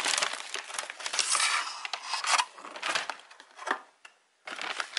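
White paper wrapping rustling and crinkling as hands unwrap it by hand, in a few loud uneven stretches with a brief pause near the end.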